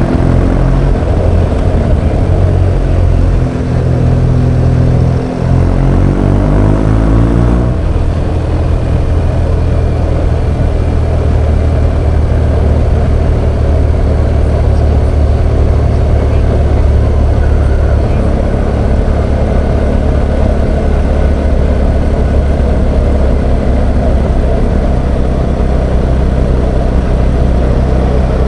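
BMW R1200GS Adventure's boxer-twin engine under way: it accelerates with rising pitch and a couple of brief dips at gear changes, then settles into a steady cruise about eight seconds in, with a constant rush of wind and road noise.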